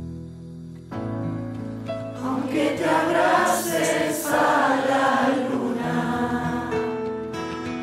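Background music with a group of women singing together, their voices loudest from about two seconds in until near the end, when the instrumental music carries on alone.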